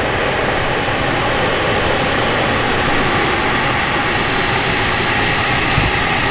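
Aircraft engines running loud and steady: a dense rush of noise with a faint steady whine on top.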